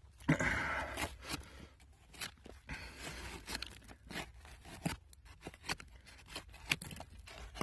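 Digging in old dump soil: a burst of scraping and crunching of dirt and debris near the start, then a string of irregular sharp clicks, knocks and short scrapes as the dirt is worked to free the bottles.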